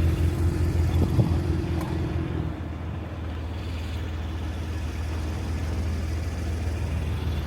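A car on the move: a steady low engine hum with road noise.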